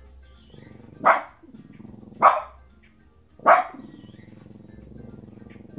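A dog barking three times, about a second apart, over music from a television.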